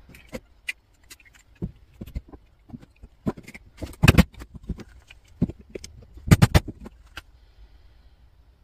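Hammer blows and metal-on-metal clinks as a wedge is knocked in to part a CO2 fire extinguisher's brass valve from its steel handle: scattered light taps, the heaviest blow about four seconds in and a close pair of blows a couple of seconds later, then the tapping stops.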